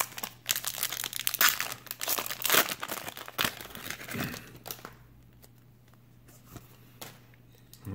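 Foil wrapper of a Panini Prizm football card pack crinkling and tearing as it is ripped open by hand, for about the first four and a half seconds. It then goes much quieter, with a few light ticks as the cards are fanned out.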